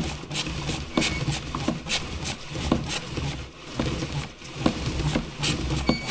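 Spray bottle squirting kerosene onto a motorcycle drive chain in a series of short, irregular spritzes to clean it.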